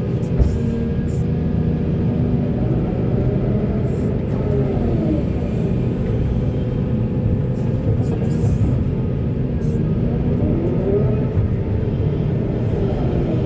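Volvo 480 excavator's diesel engine running steadily under load, its hydraulics whining up and down in pitch twice as it digs, with light clanks over the top.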